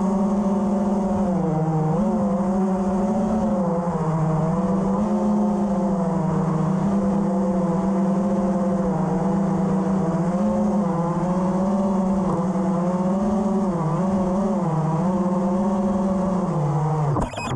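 FPV freestyle quadcopter's brushless motors and propellers buzzing in flight, the pitch dipping and rising again and again with throttle changes, then falling sharply near the end as the motors spool down.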